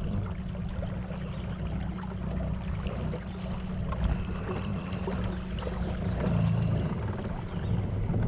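A small fishing boat under way: its motor runs steadily, low and even, with water rushing along the hull.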